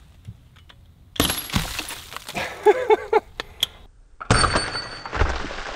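Powder-actuated nail gun firing a yellow .22 blank and driving a steel nail through a cinder block: a sharp bang about a second in, then the concrete breaking apart and pieces clattering. A second loud bang with breaking debris follows a few seconds later.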